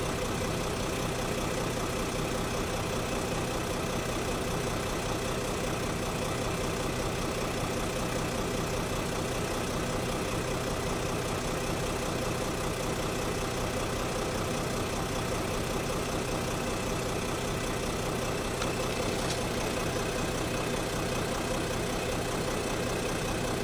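Jeep Grand Cherokee's OM642 3.0-litre V6 turbo-diesel idling steadily, heard from inside the cabin.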